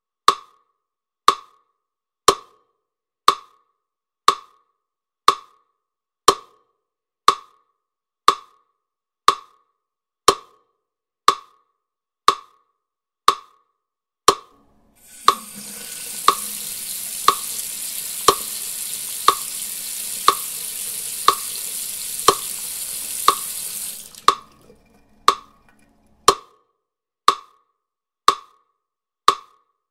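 A sharp wood-block tick, about once a second, keeping a steady beat throughout. From about halfway a steady hiss comes in under it and cuts off about nine seconds later.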